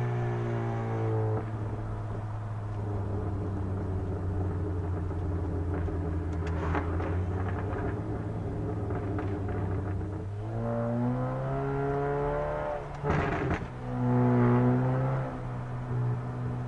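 Honda Accord's K24W1 2.4-litre four-cylinder engine running at steady revs with a few exhaust crackles, then revved twice, with a sharp burst of exhaust pops and bangs between the two revs near the end.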